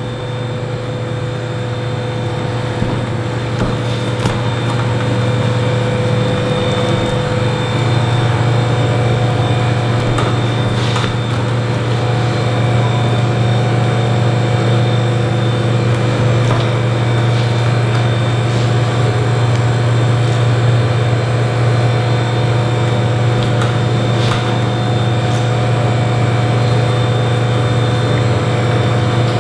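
Steady low machine hum of commercial kitchen equipment, with faint steady tones above it; it grows a little louder over the first several seconds and then holds level.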